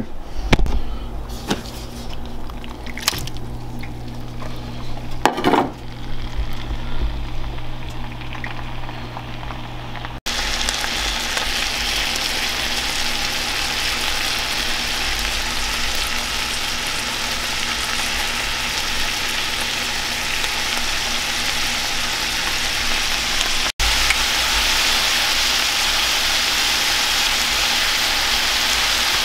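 Chunks of rabbit meat frying in a pan with a steady sizzle, which becomes much louder and denser about a third of the way in. Before that there is a low hum with a couple of knocks.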